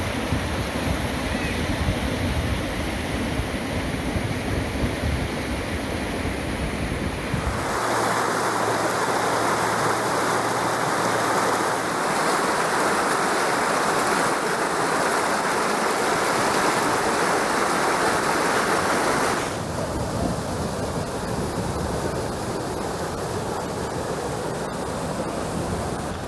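A small stream flowing as a steady rush of water. The sound shifts abruptly about seven seconds in, becoming louder and brighter, and falls back to a duller rush near twenty seconds.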